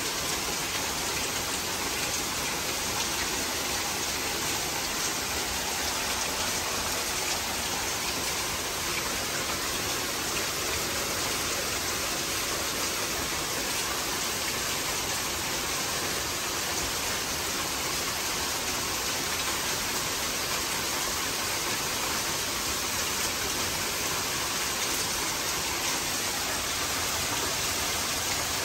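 Heavy downpour of rain falling on trees, shrubs and a paved path: a steady, even hiss without breaks or thunderclaps, like an air conditioner blowing.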